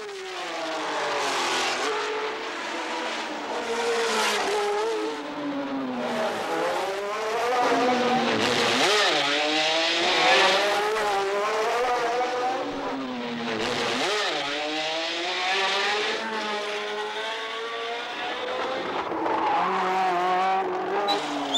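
1977 Formula One cars racing past, the Ferrari 312T2's flat-12 and the Wolf WR1's Cosworth DFV V8, engines revving hard. The engine pitch climbs and drops repeatedly as the cars accelerate, change gear and pass.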